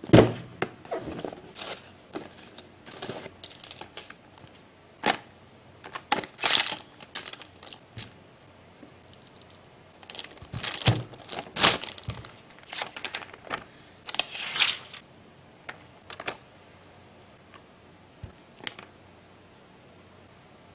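Unboxing handling noises: a cardboard gift box is knocked and set down, and a keyboard's plastic bag crinkles, with scattered knocks and rustles. It goes quieter in the last few seconds, with only a couple of faint ticks.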